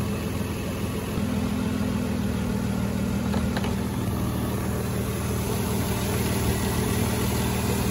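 Nissan Quest minivan's V6 engine idling steadily with the AC switched on, while the AC compressor is not kicking in.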